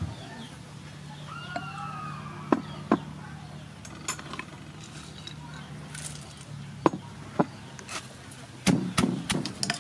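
A few sharp, scattered taps of a wooden spoon against bowl and mortar, then a quick run of heavy thuds near the end as a wooden pestle pounds papaya salad in a mortar.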